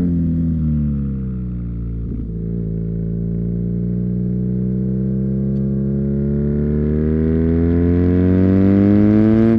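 2019 BMW R nineT's 1170 cc boxer twin through an Akrapovic slip-on exhaust, heard onboard while riding. The engine note falls as the rider rolls off the throttle, with a brief stutter about two seconds in. It then pulls hard under acceleration, its pitch and loudness climbing steadily until a break right at the end.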